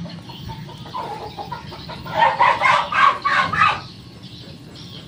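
A chicken clucking: a fast run of short, sharp clucks about two seconds in, trailing off before the fourth second.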